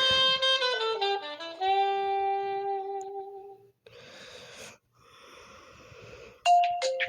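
Huawei P30 ringtone playing from the phone: a melody of held notes that steps down and ends about three and a half seconds in. Two short spells of hiss-like noise follow, then the next ringtone's bright, chiming notes start near the end.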